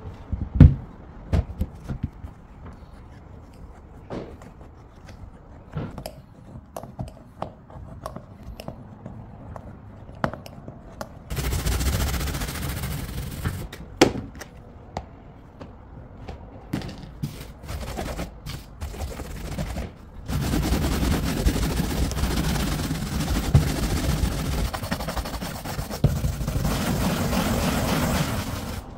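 A leaded stained glass panel handled on a workbench, with sharp knocks and clatters, the loudest just after the start. Then it is scrubbed by hand with a stiff brush over the glass and lead cames: a steady scrubbing noise, once for about three seconds and then for about eight seconds near the end, as part of cleaning and polishing the finished panel.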